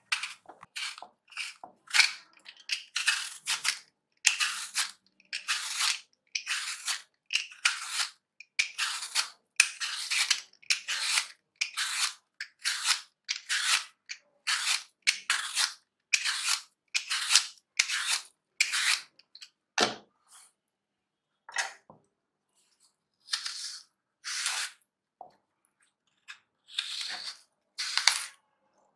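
Y-peeler shaving the skin off an apple, a short rasping scrape with each stroke, about one or two strokes a second. After about twenty seconds the strokes come further apart, with a single knock on the board.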